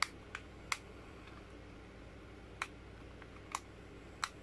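Sharp plastic clicks, about six at irregular intervals, from a battery-powered LED puck light's plastic housing being handled and twisted.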